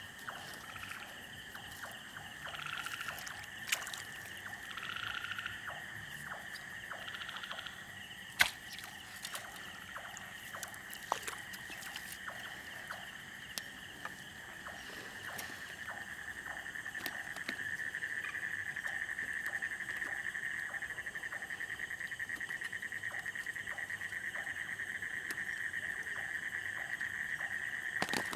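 Night outdoor chorus: a steady high-pitched trill that grows louder in the second half, with a few short calls in the first several seconds. Over it come scattered small clicks and splashes of footsteps wading through shallow water and mud, and one sharp knock about eight seconds in.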